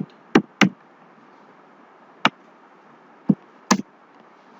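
Computer keyboard keystrokes: five separate, sharp clicks at uneven intervals.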